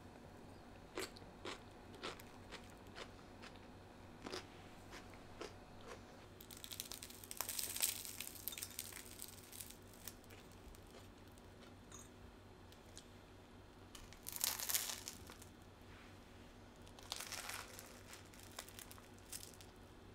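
A slice of crisp toasted bread being torn apart by hand: crackly crunching of the crust in three bursts, the first and longest a few seconds in. Before it come a series of light clicks and taps.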